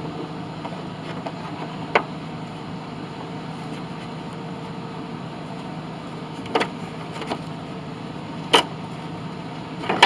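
A few sharp clicks and knocks, about four spread over ten seconds, as the mower's plastic bottom cover and its parts are handled and fitted back into place, over a steady low background hum.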